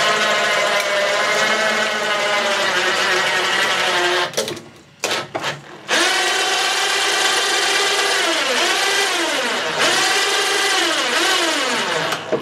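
Suzuki DT-25 two-stroke outboard turned over by its electric starter motor in two long cranking runs with a short break about four seconds in; the pitch rises and falls with each turn, and the engine does not start. It is being cranked to draw fuel into a carburettor float bowl that the owner reckons is empty.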